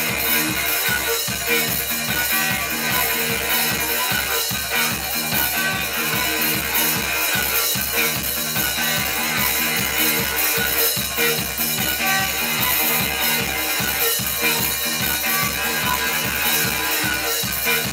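Live instrumental rock from a drums, electric guitar and bass trio, playing a steady, repetitive driving groove with a regular pulsing beat.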